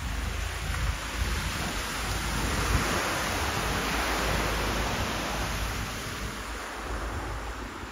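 Surf breaking and washing up a shingle beach: a hiss that swells to a peak a few seconds in and then eases off, over a steady low wind rumble on the microphone.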